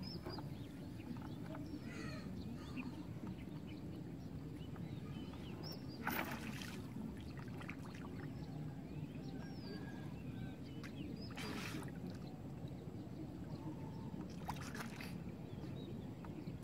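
River water splashing and sloshing as a fisherman moves about neck-deep in the water beside a wooden boat, with a few short louder splashes about six, eleven and fifteen seconds in, over a steady low background noise.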